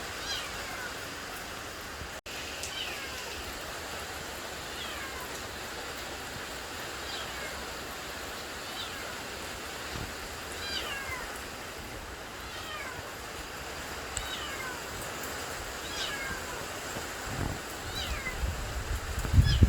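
An animal's high call, falling in pitch, repeated about every two seconds over a steady background hiss.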